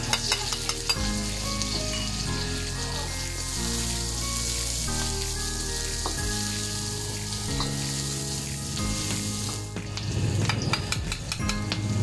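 Sliced onion sizzling in hot oil in a wok on high heat, a steady hiss. A metal ladle stirs and scrapes against the wok, with clusters of clinks about a second in and again near the end.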